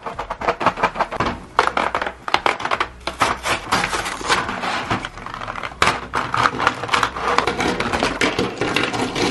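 Cardboard-and-plastic blister packaging of a pack of gel pens being torn open by hand: a dense, irregular run of tearing, crackling and crinkling, with the plastic pens clicking together as they are pulled out.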